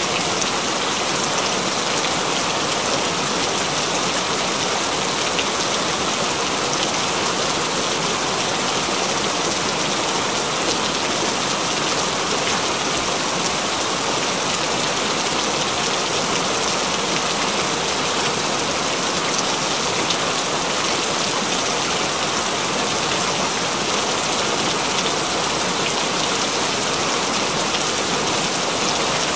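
Steady continuous rain falling on hard surfaces: an even, unbroken hiss of drops that holds at one level.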